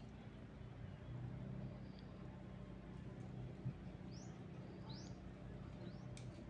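Birds chirping: two short rising calls, about four and five seconds in, over a steady low hum. A single knock sounds just before the first call.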